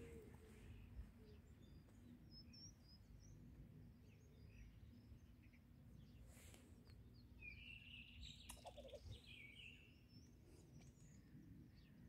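Near silence with a faint low background rumble and a few faint bird calls: small chirps about two and a half seconds in, and a clearer short chirping phrase about eight seconds in.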